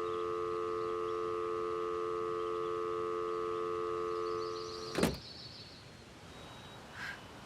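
Telephone dial tone, a steady hum through a phone-booth handset after the call is cut off; it stops about four and a half seconds in, and a sharp clunk of the receiver being hung up follows.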